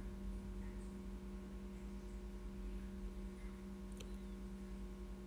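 Faint steady electrical hum, with a single faint click about four seconds in.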